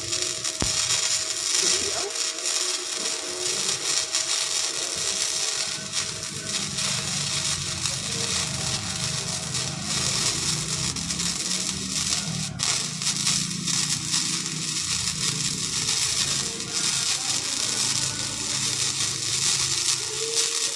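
Flux-cored MIG welding arc crackling and sizzling steadily as the wire feeds into the weld, with a low hum underneath.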